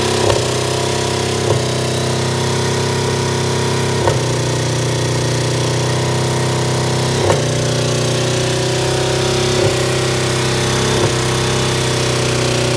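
Buick LeSabre's 3.8-litre V6 running steadily, its oil replaced with yogurt drink and energy drink. A sharp knock comes about six times at uneven intervals.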